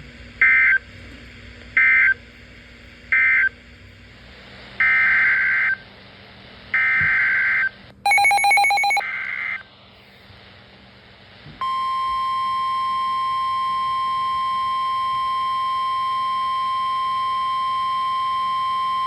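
Emergency alert data bursts from NOAA Weather Radio. Three short end-of-message bursts close the previous warning, then three longer header bursts begin the next alert, with a brief buzzy beep laid over the third. About 11.5 seconds in, the steady 1050 Hz weather radio warning alarm tone starts and holds.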